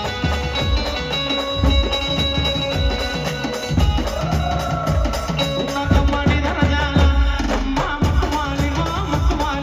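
Brass band playing, with held brass notes and a melody line over a steady, heavy drum beat.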